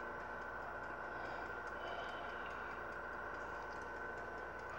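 Steady background hum with a constant high-pitched tone and no distinct events.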